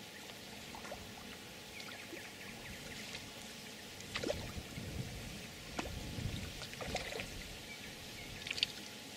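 Faint, irregular splashing and lapping of water, with a few sharper splashes about four, six, seven and eight and a half seconds in.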